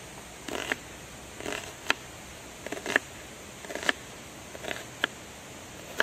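Chef's knife slicing through a raw onion on a bamboo cutting board, five cuts about a second apart: each is a short crunch ending in a sharp tap of the blade on the board.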